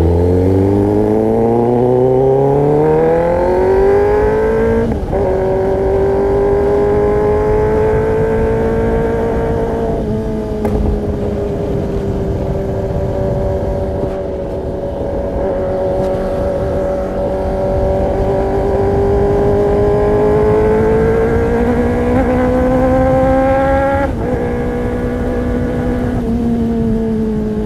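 Kawasaki ZX-10R inline-four engine through an Arrow Pro-Race exhaust, revving up hard under acceleration. It then holds high revs with short breaks in the engine note at gear changes, about five, ten and twenty-four seconds in.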